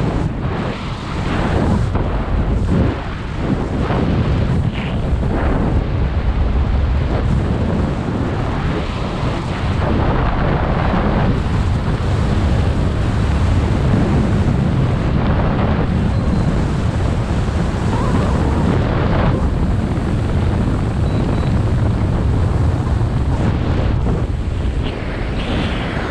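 Wind buffeting the camera's microphone during a parachute descent under an open canopy: a loud, steady, gusting rumble that rises and dips from moment to moment.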